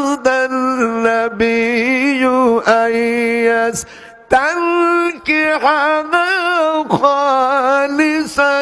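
A man chanting a Quranic verse in melodic recitation style into a microphone. He holds long notes with wavering ornaments and pauses for a breath about four seconds in.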